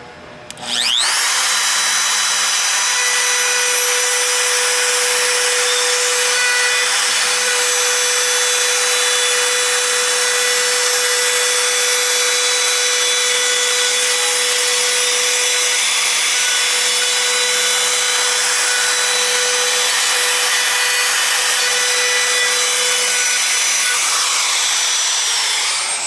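Handheld wood router spinning up about a second in, then running at full speed with a steady high whine as it cuts a hinge mortise into the edge of a wooden door along a jig, and spinning down near the end.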